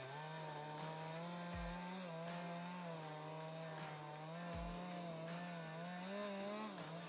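Gas chainsaw cutting through a large dry tree trunk, the engine running steadily at high revs under load. Its pitch wavers slightly as the chain bites and dips briefly near the end.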